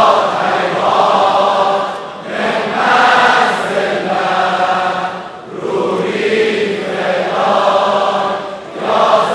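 A large crowd of women and girls singing a Persian devotional anthem in unison, swelling and falling in phrases every two to three seconds. It is the anthem's refrain, addressed to the Imam of the Age.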